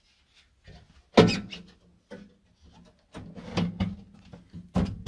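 Sheet-metal side panel of a Vokera Compact 25 HE boiler casing being fitted, knocking against the metal casing. One sharp clank comes about a second in, then a run of lighter knocks and rattles near the end.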